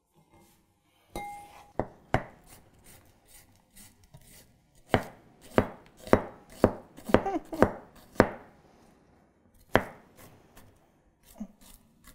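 Dragon Storm Fusion chef's knife chopping onion on a plastic cutting board: irregular sharp knocks of the blade striking the board, about fifteen of them, coming fastest in the middle.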